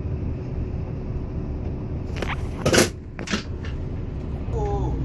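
Steady low rumble of an express coach heard from inside the passenger cabin, with three sharp knocks between about two and three and a half seconds in, the middle one loudest.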